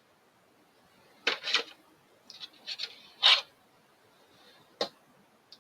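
Packaging being handled while game miniatures are taken out: a handful of short rustles and scrapes, the strongest about a third of the way through and a brief one near the end.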